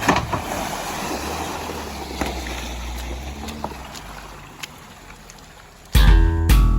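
Off-road vehicle engine running with a low steady hum under rough noise of wind and mud, fading gradually; loud music with guitar and drums cuts in about six seconds in.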